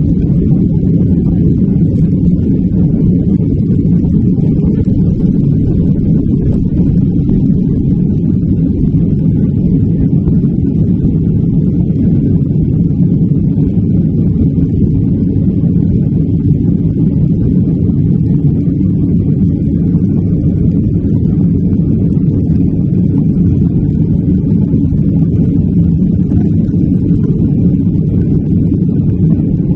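Jet airliner at takeoff power heard from inside the passenger cabin: a loud, steady, low rumble of engine and airflow noise that stays even through the takeoff roll and climb.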